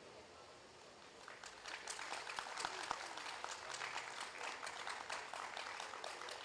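Audience applauding, the clapping starting about a second in, just after a choral song ends. The clapping is scattered and modest, from a small crowd.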